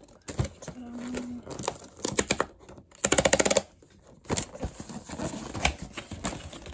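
Perforated tear strip of a thin cardboard box being ripped open: runs of rapid crackling clicks as the perforations give way, the loudest and densest lasting about half a second near the middle, with rustling handling of the box between them.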